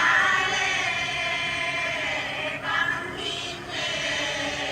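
A choir of several voices singing together in long held notes.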